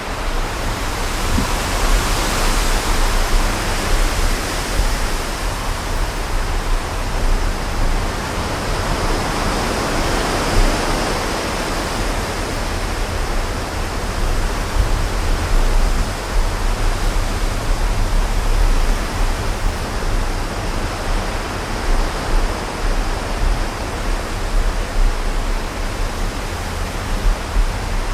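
Strong wind gusting, with low buffeting on the microphone under a steady rush that swells about two seconds in and again about ten seconds in.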